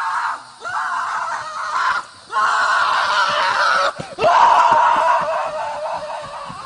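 A run of long, loud screams, about four with short breaks between them; the last is the longest and trails off near the end.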